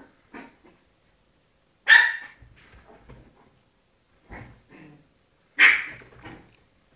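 Small dogs barking in short sharp barks, the two loudest about two seconds in and about five and a half seconds in, with quieter barks between.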